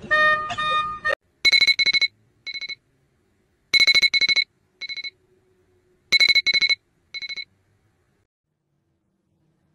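Electronic alarm beeping in a repeating pattern: a cluster of rapid high beeps and then one short beep, about every two and a half seconds, three times over. It stops about seven and a half seconds in. Just before the beeping, a brief high pitched tone sounds for about a second.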